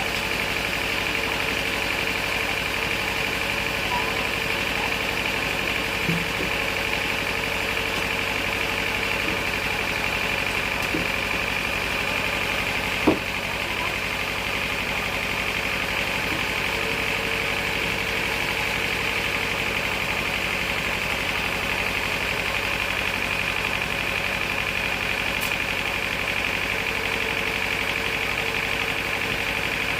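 Sawmill machinery running steadily: an even engine hum with a high whine above it, and one sharp knock about thirteen seconds in.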